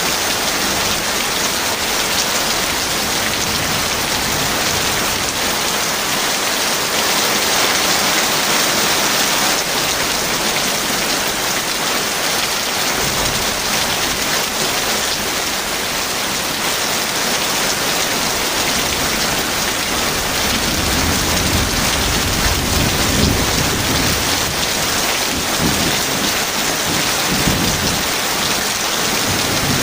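Heavy rain falling steadily, with low rolling thunder that comes in about halfway through and is loudest in the last third.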